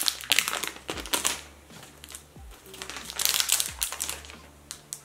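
Plastic shrink wrap crinkling and crackling as it is peeled off a phone box, in two bursts, the first right at the start and the second about three seconds in. Background music with a steady low beat runs underneath.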